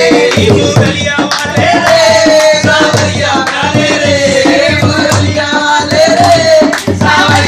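Dholak drumming in a steady dance rhythm with hand clapping, under a wavering sung melody: a bhajan sung at a home kirtan.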